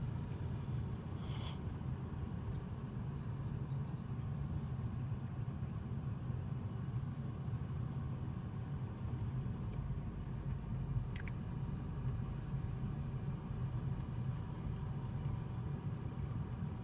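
Steady low rumble of a car on the move, with a brief click about eleven seconds in.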